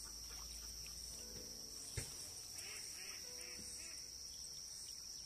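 A steady high-pitched insect drone, with a single sharp knock about two seconds in and a few faint chirping calls around the middle.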